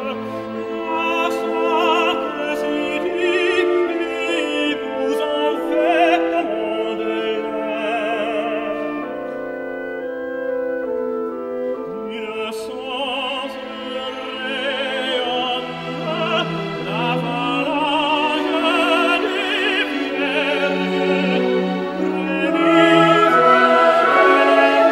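Classical music in operatic style: a voice singing long notes with wide vibrato over an orchestral accompaniment.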